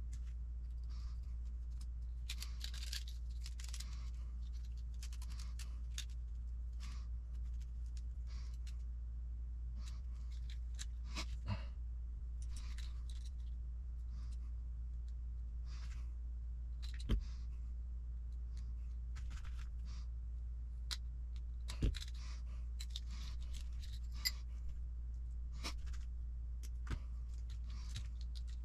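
Hard plastic RC truck suspension parts being handled and fitted by hand: scattered light scrapes and rubbing with a few sharp clicks, over a steady low hum.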